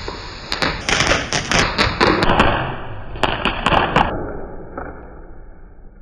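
Small sky-shot firework going off: a dense hiss of sparks broken by a quick run of sharp cracks and pops for about four seconds, then a fading hiss as the sparks die away.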